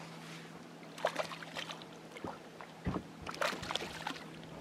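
Hooked bass thrashing and splashing at the surface beside the boat, in two bursts of splashes with a low knock between them, over a steady low hum.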